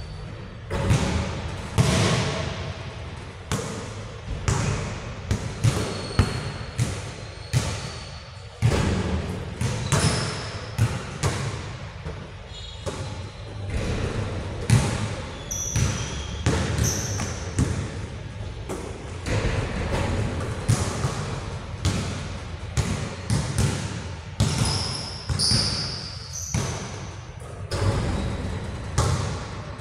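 Basketball bouncing on a hard indoor court: a steady run of irregular thuds echoing in a large hall, with a few short high squeaks in the second half.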